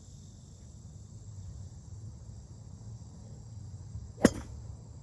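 A golf driver striking a ball off the tee: one sharp crack about four seconds in, over a steady chorus of crickets.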